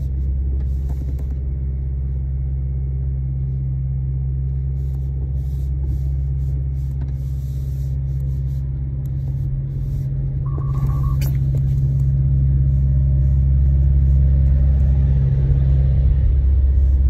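Leaf-collection truck's engine running, a steady low rumble heard from inside a car's cabin. A short beep sounds about ten seconds in.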